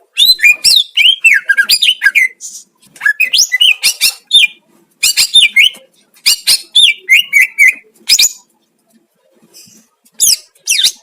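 Cucak ijo (green leafbird) singing: loud phrases of quick whistled notes and chirps that slide up and down, in four bursts with short pauses between them, then a fast downward sweep near the end. It is a master song of the kind played to goad caged cucak ijo into singing.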